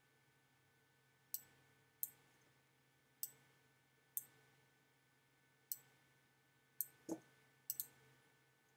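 Sharp, single computer mouse clicks, about nine of them at irregular intervals, with two pairs close together in the second half, over a faint steady hum.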